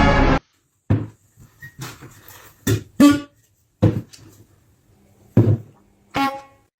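Music cuts off abruptly about half a second in. About seven short, sharp, separate sounds follow at irregular intervals, each dying away quickly, over a faint low hum.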